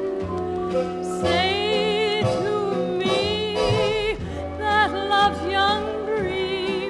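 Orchestral music from a vinyl LP: a melody line with wide vibrato carries over sustained chords, continuously.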